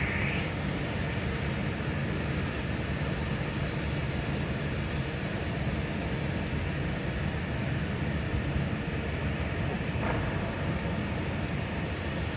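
Steady low rumble with a hiss, with a higher band of hiss that fades out just after the start.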